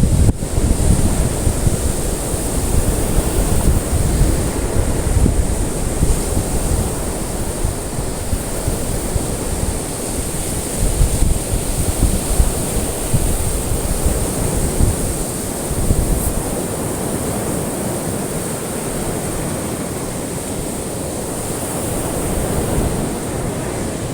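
Ocean surf: waves washing continuously onto a shore, a steady rushing wash with a deep low rumble that swells and eases gently. A faint steady high hiss runs over it.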